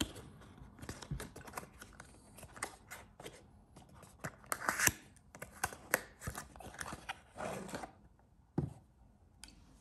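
Hands opening a red velvet-covered perfume box and sliding out a glass eau de toilette bottle: scattered small clicks, taps and rustles of the box flap and bottle, with a brief louder scrape about halfway through.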